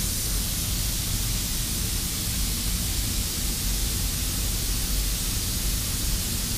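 Compressed-air paint spray gun hissing steadily with the trigger held, over the low rumble of the spray booth's ventilation.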